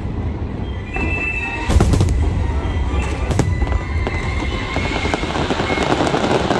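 Large fireworks display at its finale: aerial shells bursting with loud booms over a constant low rumble. Two sharp reports come about two and three and a half seconds in. Dense crackling from crackle effects builds over the last few seconds.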